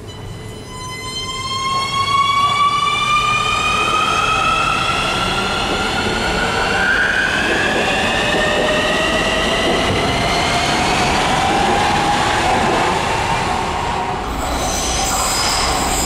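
Nuremberg U-Bahn DT3 train pulling out of an underground station, its traction motor whine climbing slowly and steadily in pitch as it accelerates, over wheel and rail noise. Near the end the sound changes suddenly to a higher whine, as another train approaches through the tunnel.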